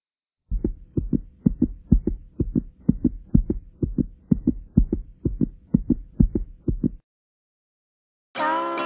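A rapid run of deep, heartbeat-like thumps, about three to four a second over a faint held tone, stopping abruptly about seven seconds in. A ukulele-led song starts near the end.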